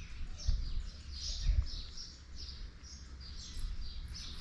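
Small birds chirping over and over, a few short chirps a second, with two low bumps about half a second and a second and a half in.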